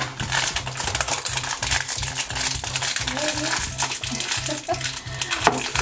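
Crinkling and rustling of thin plastic wrapping being peeled off a plastic blind-box container, in many small irregular crackles, over background music with a steady beat.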